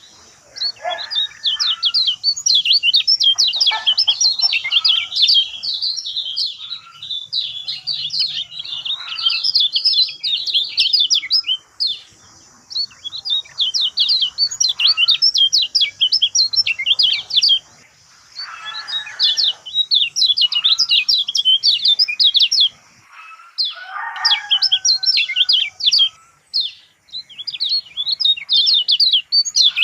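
Lemon-bellied white-eye (kecial kuning) singing a fast, high twittering song in phrases several seconds long, separated by brief pauses.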